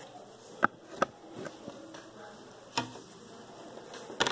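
A few light, sharp taps and clicks of fingers and a hobby knife handling small paper model parts on a cutting mat: two close together about a second in, one near three seconds, and a cluster at the end.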